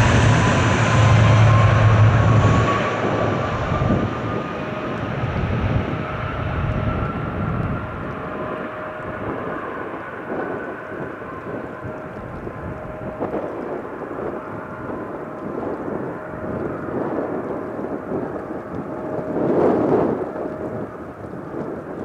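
Japan Air Commuter ATR 42-600 twin-turboprop airliner taking off: a loud propeller drone with a whine rising in pitch over the first several seconds, then fading as the aircraft moves away. Gusty wind buffets the microphone, with a strong gust near the end.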